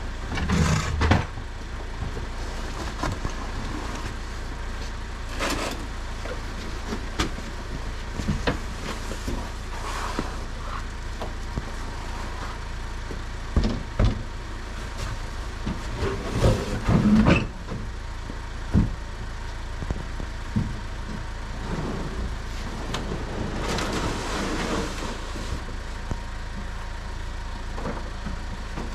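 Steady low drone of a vehicle on the move, with scattered knocks and thumps.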